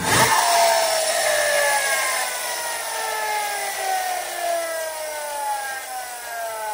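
Friction-driven siren of a 1950s Yonezawa tin police car, spun up by pushing the car: a whirring wail that starts suddenly and loud, then falls slowly in pitch and fades as the flywheel winds down.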